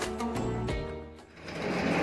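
Background music with a steady beat. From about one and a half seconds in, a metal sliding gate starts rolling open on its track with a rattle that swells and becomes the loudest sound.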